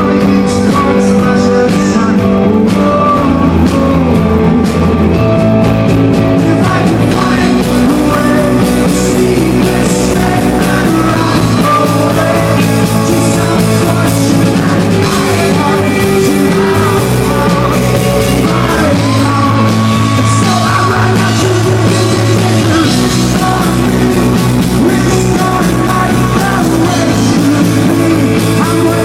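A rock band playing live and loud, with a singer over the band.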